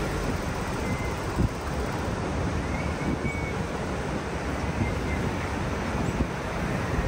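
Wind buffeting the microphone from a moving car, over a steady rumble of engine and tyres on the road.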